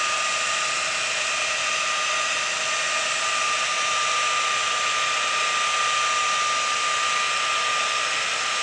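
3M Dynamic Mixing System (DMS) pneumatic seam-sealer applicator running steadily, a hissing whine with one clear steady pitch, as it mixes two-part 8308 heavy-bodied seam sealer and pushes it out through the nozzle.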